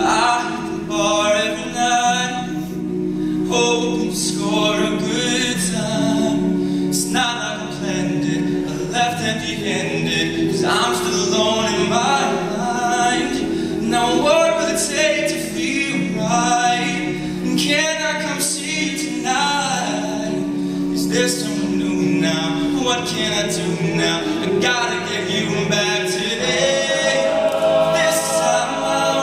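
Male a cappella group singing: a lead voice sings a bending melodic line over sustained chords held by the backing voices.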